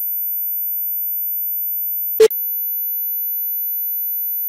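Steady 14,000 Hz sine test tone, played on the left channel and then on the right, with a short loud blip about two seconds in.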